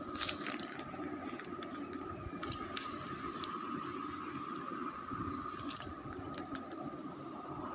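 Scattered clicks and rustles of a delivery parcel's packaging being handled and opened, over a steady faint background hum.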